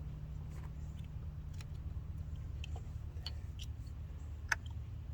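Scattered light clicks and taps of hand tools and parts being handled in a car's engine bay, with one sharper click about four and a half seconds in, over a steady low hum.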